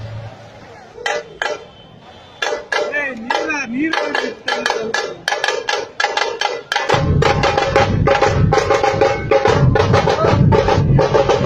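Procession drum troupe of dhol barrel drums and smaller stick drums: sharp, scattered stick strikes pick up into rapid playing, then the big dhol drums come in about seven seconds in with a heavy, steady beat.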